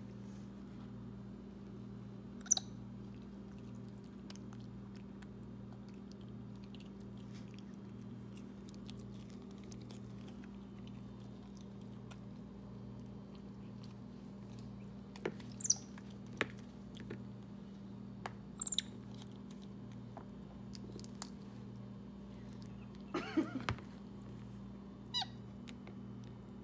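White-faced capuchin monkey eating a chocolate-coated ice cream cone: scattered crunches and mouth smacks, with a short squeaky call near the end, over a steady low hum.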